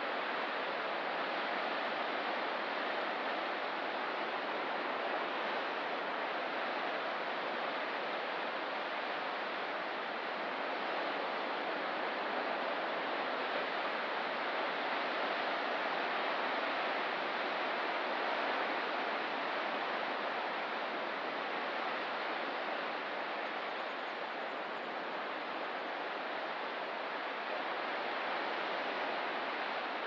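Ocean surf: a steady, even rushing of water with no separate wave crashes standing out.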